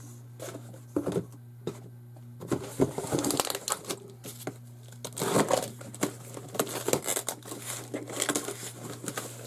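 Plastic packaging crinkling and rustling as it is handled, with small knocks, sparse at first and busier from about two and a half seconds in.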